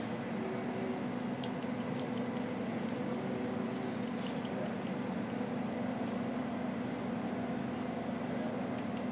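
A steady low mechanical hum at an even level, with a faint hiss behind it and a few light clicks.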